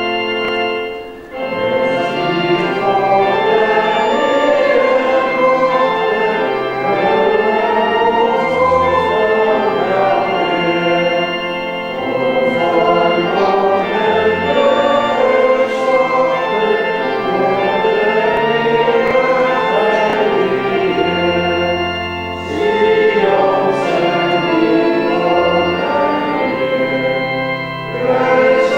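Congregation singing a hymn with pipe or electronic organ accompaniment, the organ holding steady low notes under the voices, with short breaks between the sung lines.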